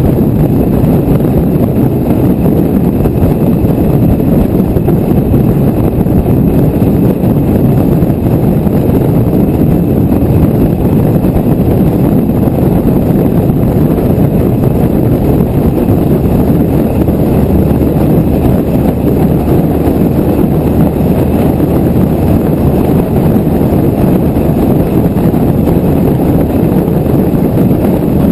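Steady wind buffeting on the microphone of a camera mounted outside a moving car, over the car's road and engine noise at cruising speed.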